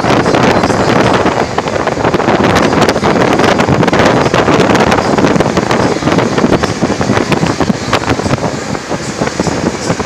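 Wind rushing and buffeting against a phone microphone held at the open window of a vehicle moving at speed, with crackling gusts over steady road and engine noise.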